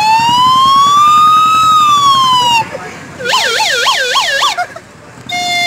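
Siren imitation of a 108 ambulance played on a handheld noisemaker. It opens with a long wail that slowly rises and falls, then a fast warbling yelp of about four up-and-down sweeps a second. Near the end it switches to a hi-lo two-tone pattern.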